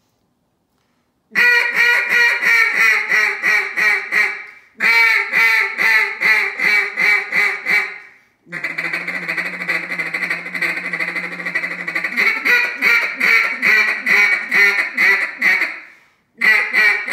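Acrylic double-reed duck call blown in runs of quick hen-duck quacks, about three to four a second, four runs in all after about a second of silence, the third the longest. A low steady drone lies under the first part of that long run.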